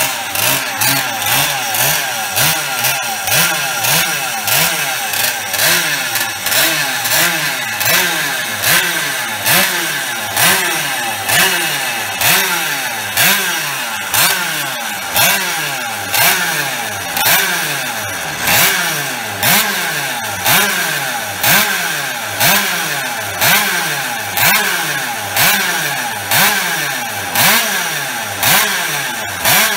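Replica Minarelli 50cc rotary-disc-valve two-stroke racing engine running just after being started, the throttle blipped about once a second so each rev rises and falls sharply.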